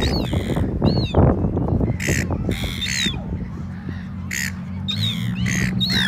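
Birds giving short, harsh calls one after another, about one or two a second, over a low rumble; a low steady hum comes in near the end.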